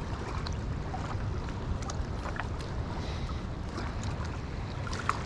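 Steady wind noise buffeting the microphone over small waves lapping at the bank, with a few faint clicks.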